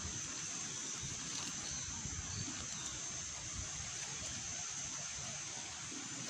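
Steady outdoor background noise: a constant high hiss over a low, uneven rumble, with no distinct events.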